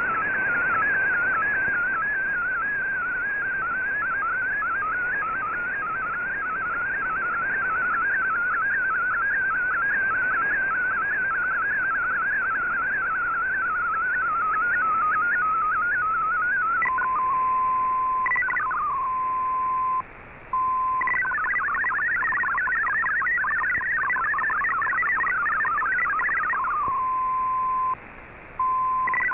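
MFSK64 digital data signal from a shortwave broadcast, heard through the receiver's AM audio. For the first 17 seconds a single warbling tone wavers up and down as a picture is sent. It then changes to a steady tone with short sweeps and two brief gaps, and from about 21 to 27 seconds a fast chatter of hopping tones carries the next line of text.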